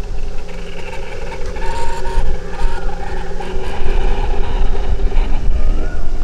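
Brushless drone motors (BLDC) running steadily as they drive a small cardboard electric boat, a steady motor hum with several level tones over a low rumble.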